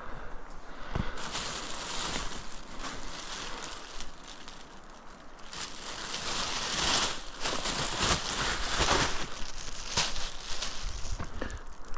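Close rustling and crunching, in two stretches: one starting about a second in, then a louder one from about halfway to near the end.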